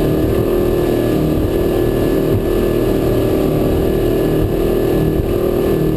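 Volvo Penta V8-270 sterndrive engine running steadily with the boat planing under way. Its drone holds one even pitch, heard from inside the cabin over the rush of water along the hull.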